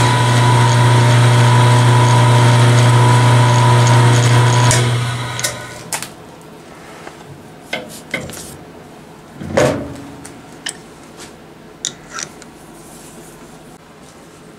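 An electric motor hums loudly and steadily for about five seconds, then winds down. Scattered clicks and knocks follow as a tap is worked by hand through a threaded hole in an aluminium block, with one louder knock near ten seconds.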